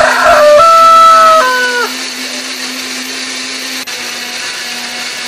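Electric countertop blender with a glass jar grinding shallots, garlic, candlenuts and turmeric into a spice paste. It starts loud with a whine that shifts and drops in pitch as the chunks break up, then settles into a quieter, steady run after about two seconds once the paste is smooth.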